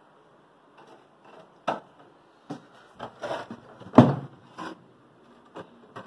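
Irregular knocks, clicks and scrapes of hands and a screwdriver working on a refrigerator's plastic freezer compartment. The loudest knock comes about four seconds in.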